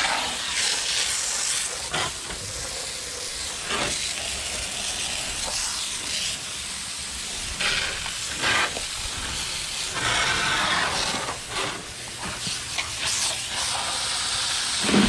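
Water spraying from a hose nozzle onto freshly caught cobia to wash off their slime. The spray swells and drops several times.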